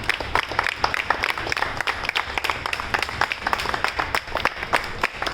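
A group of people applauding, many overlapping hand claps.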